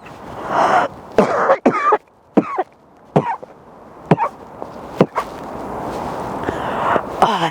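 A woman's dry cough: a fit of repeated short, sharp coughs, then a long noisy breath near the end.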